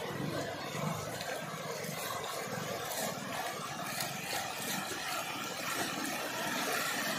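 Muddy floodwater rushing and churning down a swollen channel after heavy rain: a steady, even rush of water.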